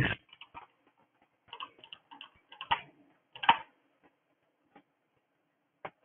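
Light, irregular clicking at a computer: about a dozen short clicks, some in quick runs of two or three, the two loudest near the middle.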